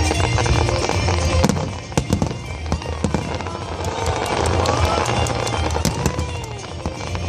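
Fireworks display: many sharp bangs and crackles going off in quick succession, over loud music with strong low bass.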